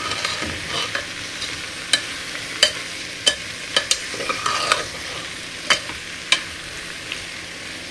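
A slotted metal spatula stirring capsicum and potato in a pressure cooker, with sharp clicks each time it knocks the pot, over a soft sizzle of frying vegetables.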